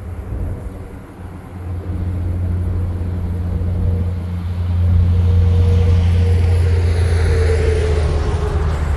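XPT diesel power car approaching, its engine giving a low, steady drone that grows louder as the train nears.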